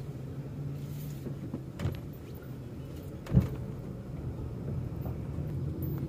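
Steady low engine and road hum heard from inside a moving car's cabin, with a faint click a little under two seconds in and one sharp knock about halfway through.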